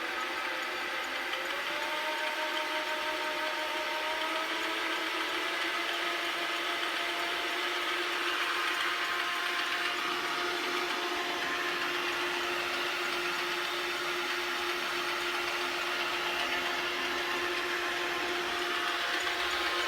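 AL960B lathe running under power with a steady whine from its motor and gears. The pitch rises a little in the first few seconds as it comes up to speed, then holds.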